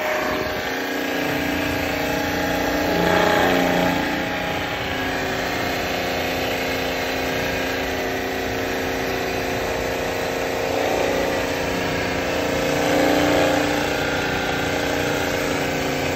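Hydra-Cell diaphragm pump of a Haas high-pressure coolant system running: a steady mechanical hum with several steady tones, growing a little louder about 3 s in and again near 13 s.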